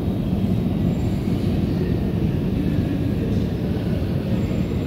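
Madrid Metro train running, a steady low rumble with no let-up.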